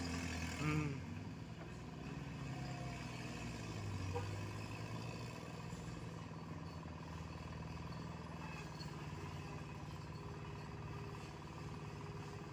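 Vehicle engines running steadily at low revs, with a short, louder pitched sound about a second in.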